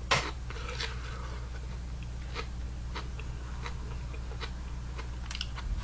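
A person chewing food with the mouth closed: a few faint, soft mouth clicks, spread unevenly across the pause, over a steady low hum.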